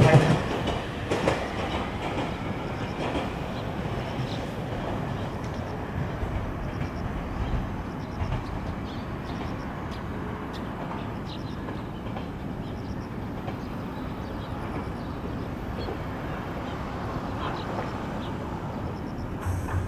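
JR Kyushu 817 series electric multiple unit standing at the platform, its onboard equipment running with a steady hum and whir.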